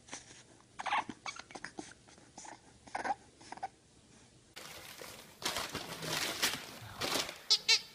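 Bulldog puppy making small whimpers and grunts, a few short ones scattered a second or so apart. About four and a half seconds in, a louder, rougher stretch of scuffling noise begins, with a quick warbling squeal near the end.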